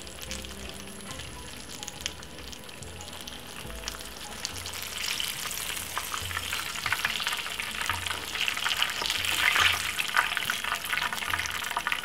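Breaded salmon fillets shallow-frying in hot oil in a nonstick frying pan: a steady sizzle with crackles, growing louder and busier from about five seconds in.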